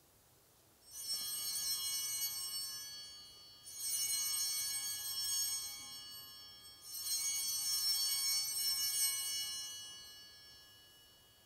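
Altar bells, a cluster of small handbells, rung three times, each ring a bright shimmer of high tones that dies away over two to three seconds. They mark the elevation of the consecrated chalice.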